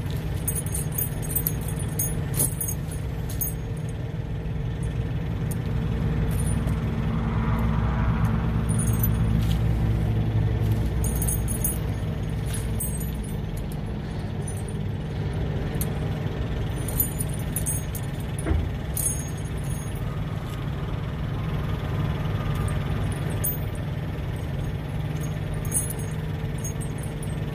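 Steel tire chains clinking and jangling in short bursts again and again as they are pulled and fitted onto a truck's dual tires, over a steady low engine hum that swells for a few seconds near the middle.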